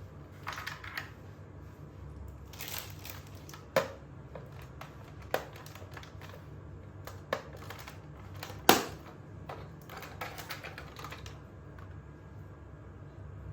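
Hard plastic toy being handled: scattered light clicks and rustling, with four sharper plastic snaps, the loudest near the middle.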